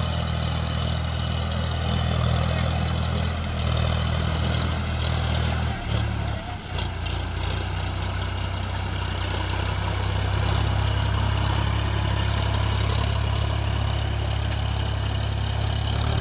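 Tractor diesel engine running steadily, its note breaking briefly about six seconds in before settling steady again.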